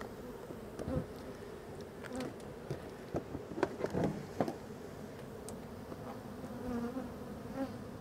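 Honeybees buzzing steadily around their disturbed nest in a truck's wheel well. Several knocks and clatters, loudest between about three and four and a half seconds in, as a hive box is handled and set into the wheel well.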